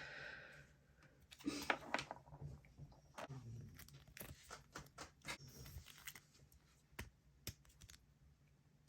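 Faint crinkling, rustling and light clicks of a foil booster pack and trading cards being handled, in short scattered bursts that stop about a second before the end.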